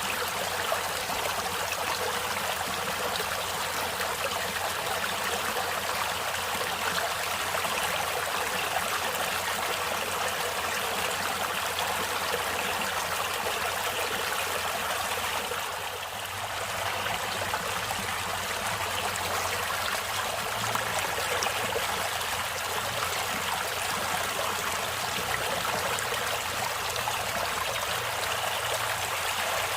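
Running water of a natural stream, a steady rush and trickle, with a brief dip in level about halfway through.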